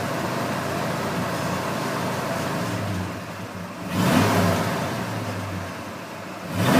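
Ford 400 big-block V8 in a 1979 F-150 idling, then revved up about four seconds in and again near the end. It is running smoothly on fresh oil, with oil pressure up.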